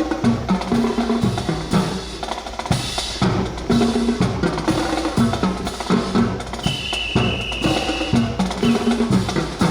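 Drum-heavy music with a steady beat and short pitched notes, with a high held tone for about a second near the middle.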